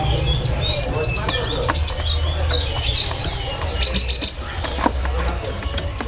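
Caged cinereous tits (gelatik batu) singing actively in quick, repeated high chirps and sweeping whistles, with a loud run of rapid notes about four seconds in, over a steady low hum.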